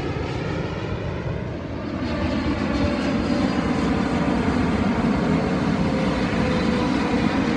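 Boeing 777 twin-jet airliners on landing approach: a steady low jet-engine roar with faint whining tones, growing louder about two seconds in.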